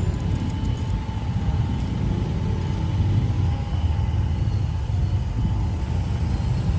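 Steady low rumble of street traffic on a jammed road.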